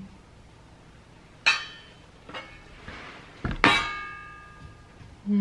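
Small stainless steel pots and lids being knocked together, with two clear metallic clanks about a second and a half and three and a half seconds in, each ringing on for a moment, and a lighter clink between them.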